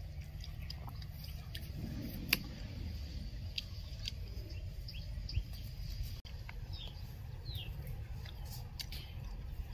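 Outdoor background with a steady low rumble, scattered small clicks and taps, and a few short falling bird chirps about two-thirds of the way through.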